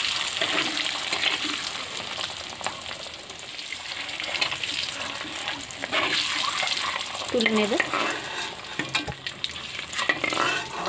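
Hard-boiled eggs sizzling as they fry in oil in a steel kadai. A metal spatula scrapes and taps against the pan as the eggs are rolled and turned.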